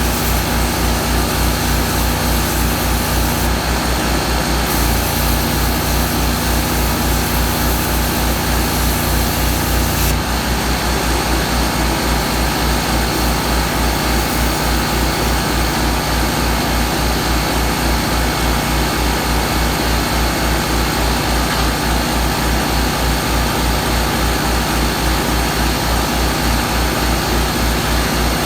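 Small Harbor Freight 10-gallon air compressor pumping with a fast, even beat, powered by a running Miller Trailblazer 325 welder-generator. About ten seconds in, a high hiss drops away and the running note shifts.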